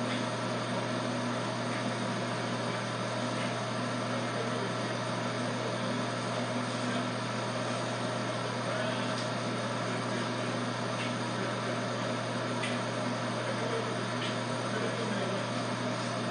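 Steady low electrical hum over a constant hiss, from a running motor or appliance, with a few faint clicks.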